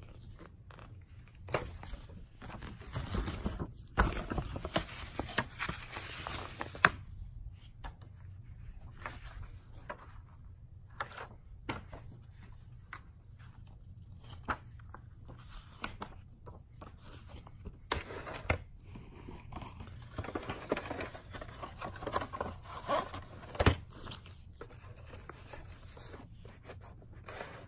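Paper rustling as a folded VHS paper insert is opened and flipped through, with scattered light clicks and knocks from handling the tape and its sleeve, and one sharper knock near the end.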